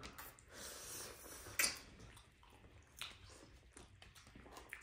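Faint, wet eating sounds of people eating noodles and other food, with scattered short clicks and one sharper click about a second and a half in.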